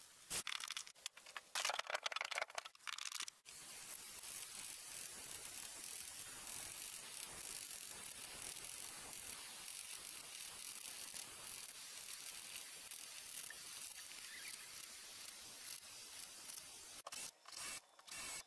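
Small handheld rotary tool cutting into old wooden boat planking around the rib nails: a few short bursts at first, then a steady hissing grind for most of the time, broken off briefly near the end.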